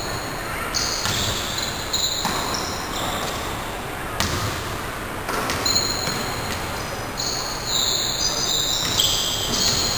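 Basketball bouncing on an indoor court floor, several irregularly spaced knocks in a large gym, with players' voices in between.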